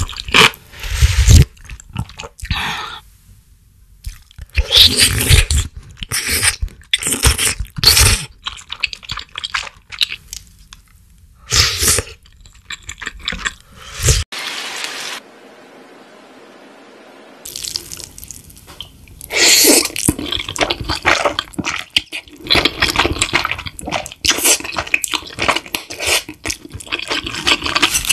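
Close-miked eating sounds: the broth of a spicy noodle stew slurped and sipped from a wooden spoon, in short wet bursts. About halfway there is a pause with only faint hiss, and then a denser run of eating noises follows.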